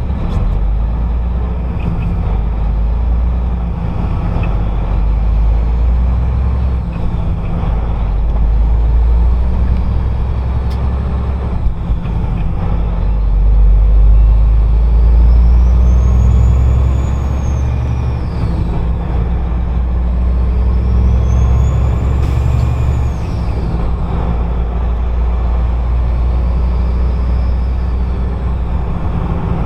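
Turbocharged vehicle engine running under way, with a steady low rumble. Three times in the second half, the turbo whistle rises high and then falls away as the engine pulls and lets off.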